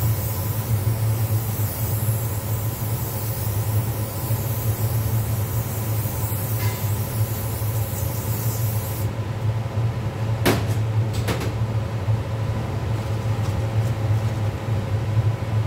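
Aerosol cooking spray hissing onto a flat-top griddle for about nine seconds, then cutting off, over a steady low mechanical hum. A little later come two sharp metallic knocks as a steel mixing bowl is set down on the griddle.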